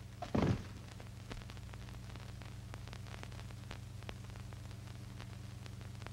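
Steady hum with scattered crackle and clicks from an old 1940s film soundtrack, with a brief low thump about half a second in.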